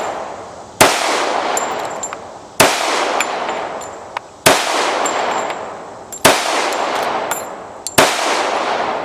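Five pistol shots from a 1911 Commander-size .45 ACP with a two-port compensated Schuemann Hycom barrel, fired at an even pace about 1.8 seconds apart, each crack followed by a long echoing decay. Light metallic clicks sound between some of the shots.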